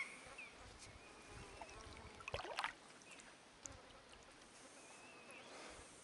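Kayak paddle working quietly through calm water, with a brief splash and drip about two and a half seconds in.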